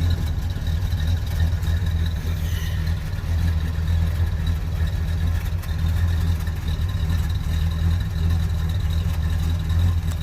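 1972 Ford Gran Torino's 351 two-barrel V8 idling steadily, a low even rumble with no revving.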